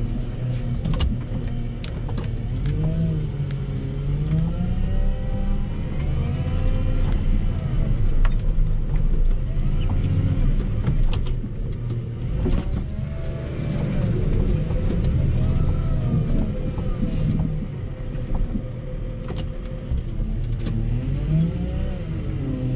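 Volvo L60H wheel loader's diesel engine working under load as it pushes snow with its front plow. The engine pitch rises and falls repeatedly, with occasional clunks, heard from inside the cab.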